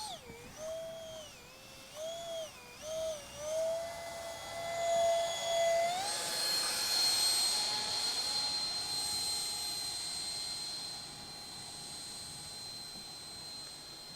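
Electric ducted fan of a mini RC jet whining in flight, its pitch dipping and rising with throttle changes for the first few seconds. About six seconds in it steps up to a higher, steady whine that slowly fades toward the end.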